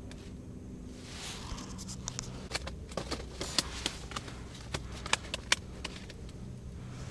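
Handling of a small ice-fishing rod and its plastic reel: a run of sharp, irregular clicks and taps from about a second in to past the five-second mark, a few of them much louder, over a steady low hum.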